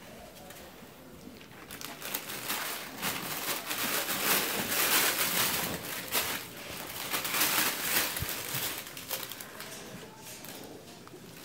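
Crinkling and rustling of a fabric pop-up pet play tunnel being moved about, starting about two seconds in, loudest in the middle and easing off near the end.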